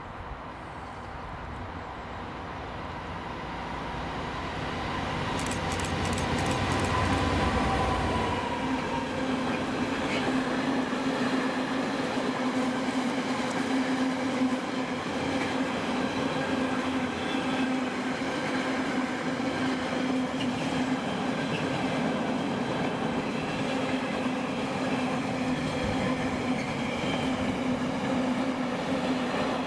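Class 66 diesel freight locomotive approaching and passing, its engine rumble growing louder for about eight seconds. A long intermodal train of container wagons then rolls by, the wheels on the rails making a steady drone with a sustained tone.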